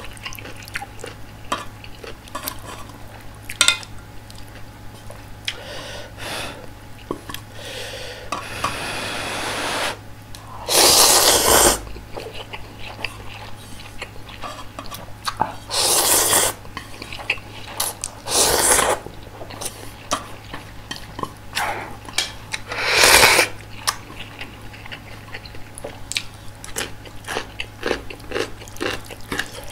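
A person eating ramyeon noodles close to the microphone: soft wet chewing and small clicks throughout, broken by four long loud slurps of about a second each.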